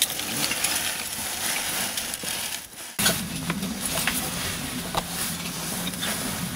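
Rustling, scraping and small knocks of a caver's oversuit and gear against rock as he climbs down into a narrow pothole entrance, over a steady hiss. The sound breaks off briefly about three seconds in, and a low hum comes in after it.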